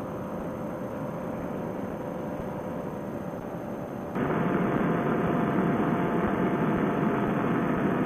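Paramotor trike engine running steadily in flight, a droning hum mixed with wind rush, heard through a Bluetooth headset microphone that cuts off the high end. It gets abruptly louder about four seconds in.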